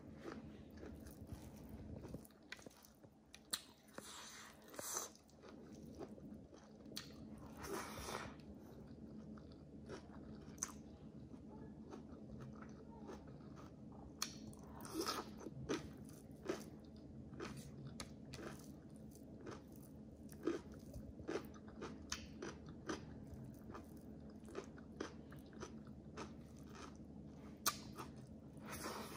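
Close-miked chewing and biting of food, with many short, sharp, wet clicks and crunches from the mouth and a few longer, noisier chews.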